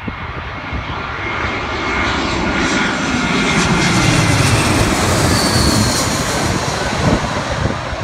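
Jetstar Airbus A320-family airliner on final approach with landing gear down, passing low overhead. Its jet engine noise swells to a peak about halfway through, then the whine glides downward in pitch as it passes and moves away.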